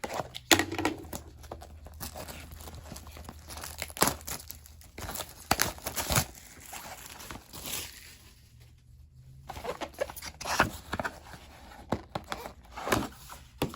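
A sealed trading-card hobby box being unwrapped by hand: plastic wrap crinkling and tearing in irregular bursts with sharp clicks, easing off briefly about eight seconds in.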